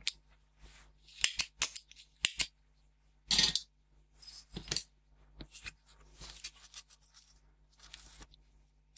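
Spring-loaded solder sucker (desoldering pump) snapping as its plunger fires at the very start. This is followed by a scatter of clicks and knocks and a quieter scraping and rustling as the circuit board is handled and turned over on the bench.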